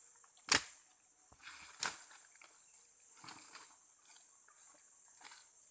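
Two sharp woody cracks about a second and a quarter apart, the first louder, as a piece of forest root is cut away, over a steady high drone of forest insects.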